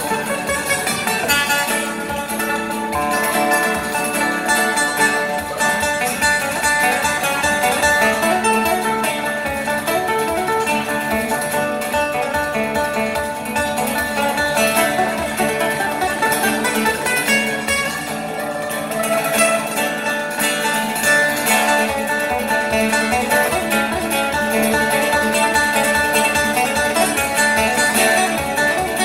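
Solo acoustic guitar played live in a lounge style, a steady stream of plucked notes and chords without a pause.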